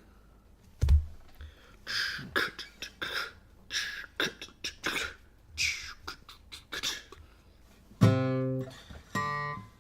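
Guitar being handled and tried out: a thump about a second in, then a run of short scratchy sounds from the strings, then two strummed chords that ring out near the end.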